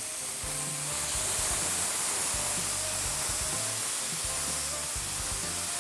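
Veal escalopes searing on a hot ceramic grill pan: a steady sizzling hiss that grows a little louder about a second in.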